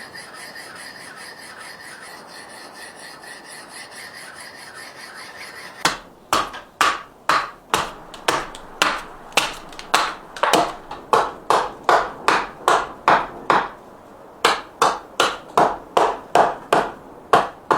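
A hand tool worked over a wooden kuksa cup in quick, even rubbing strokes, about three a second, that start about six seconds in after a stretch of faint hiss and pause briefly before picking up again near the end.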